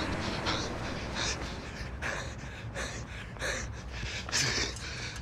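A man breathing hard and panting as he runs, with a short hissing breath about every half second to second over a low outdoor rumble.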